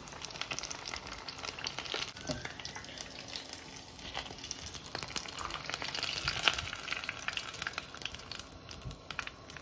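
Breaded potato croquettes deep-frying in hot oil: a steady crackling sizzle of many small pops, with one louder pop a little past six seconds in.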